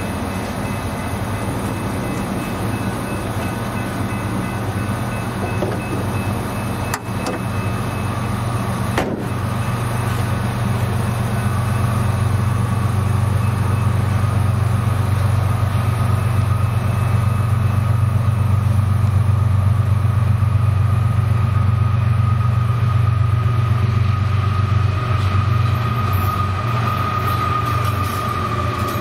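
Diesel locomotives of a Florida East Coast freight train approaching and passing close, a steady low engine rumble that grows louder over the first two-thirds, with a steady high tone coming in about halfway. Two short sharp clicks come about seven and nine seconds in.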